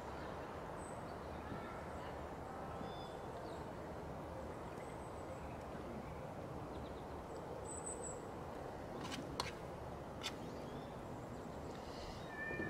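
Outdoor campsite ambience: a steady background hiss with faint, scattered bird chirps, and a few sharp clicks of a utensil against a metal bowl about nine and ten seconds in.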